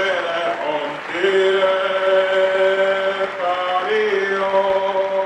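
A man singing long, held notes in an operatic tenor style. There are two sustained notes: one starting about a second in, and a second starting a little before four seconds in, each held for about two seconds.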